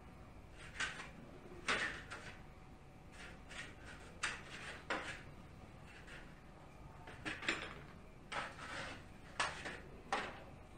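Light, irregular clatters and clicks of dishes and chopsticks being handled and set down on a wooden table, a dozen or so short knocks spread unevenly.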